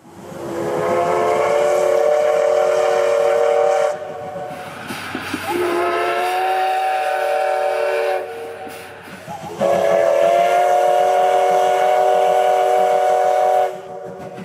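Steam whistle of a Tobu Railway C11 tank locomotive blowing three long blasts of a few seconds each, with short breaks between them.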